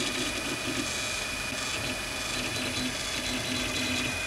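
Stepper motors of a Folger Tech FT-5 3D printer jogging the axis from the control menu: a low motor tone that starts and stops in short runs as the position is stepped.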